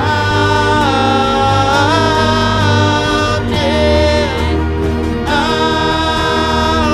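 Live worship band playing a song: voices singing long held notes that step between pitches, over acoustic and electric guitars, bass guitar and keyboard.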